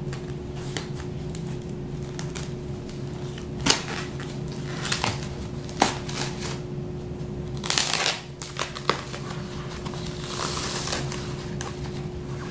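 Plastic and foam packing wrap being slit with a folding knife and pulled apart by hand: scattered crinkles, rustles and sharp clicks, with a louder rustle about eight seconds in, over a steady low hum.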